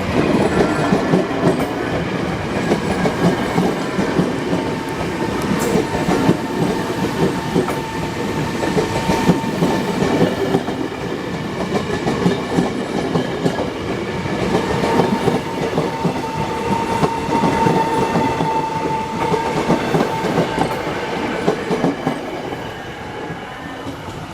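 A train running past on the rails, its wheels clattering over the rail joints in a steady rumble. A thin steady whine rises over it for a few seconds twice.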